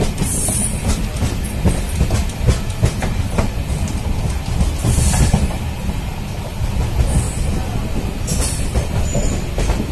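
Passenger train coach running along the track, heard from inside at the window: a steady low rumble with wheel clicks over the rail joints, and a few brief high-pitched wheel squeals.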